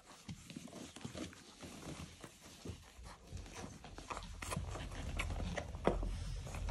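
Boerboel puppies playing: scuffling, with scattered short knocks and steps. A low rumble builds from about halfway.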